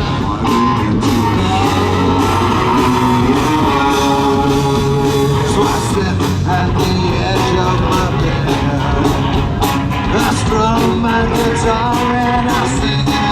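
Rock music with a singer and guitars, playing steadily.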